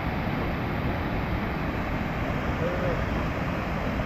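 Steady rushing of a fast-flowing mountain creek, with a brief faint shout from a distant voice about two-thirds of the way through.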